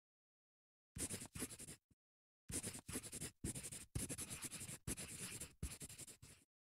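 Marker writing: quick scratching pen strokes, a short run about a second in, then after a brief pause a longer run of strokes that stops just before the end.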